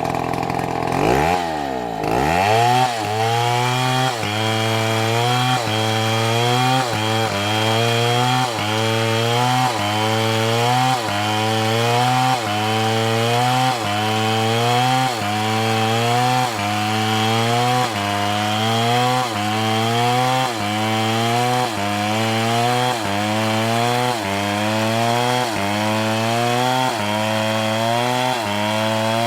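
A motor-driven saw cutting wood, its pitch dropping in the first two seconds and then rising in a regular cycle that repeats about once a second.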